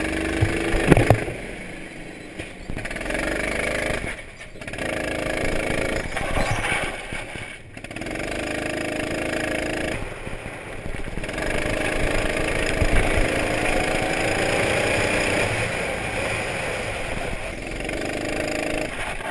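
Go-kart engine heard from on board the kart, revving up and dropping back again and again with the throttle. The loudness dips briefly a few times, and the pitch rises steadily through the later stretch.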